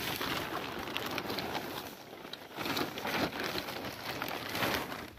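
Blue plastic tarp sheet rustling and crinkling as it is gathered and handled, an uneven run of papery crackles that dips briefly about two seconds in.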